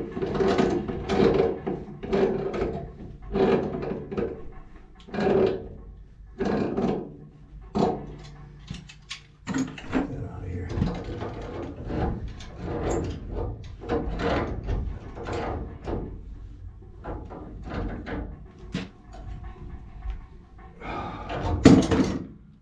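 Irregular knocks, clicks and scraping of hand tools and metal pipe fittings being worked on the top of a water heater, with a louder clank near the end.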